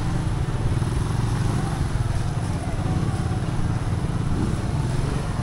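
Small motorcycle engine of a sidecar tricycle running at low speed close by, a steady low engine drone.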